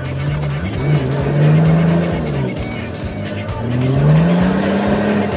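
Four-wheel-drive's engine revving up twice under load on a muddy hill climb, the pitch rising, dropping back, then rising again, heard from inside the cab. Music plays along with it.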